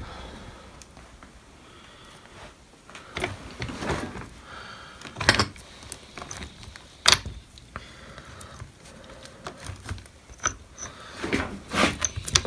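Scattered metal clicks and knocks of the opened chain hoist's gears and loose internal parts being handled and moved, with a sharper knock about seven seconds in and a quicker run of clicks near the end.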